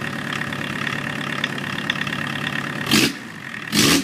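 Volkswagen 1.6 litre naturally aspirated diesel engine, out of the car on an engine stand, running at a steady idle. Near the end two short, loud bursts of rushing noise, under a second apart, cover the engine.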